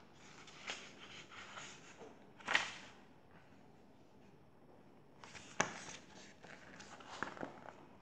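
Paper pages of a picture book being turned and handled, rustling in short bursts with a louder swish about two and a half seconds in. A sharp click comes about five and a half seconds in.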